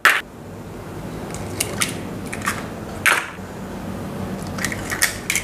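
Chicken eggs being cracked against a large bowl and dropped in: a series of short sharp cracks and taps, the loudest right at the start.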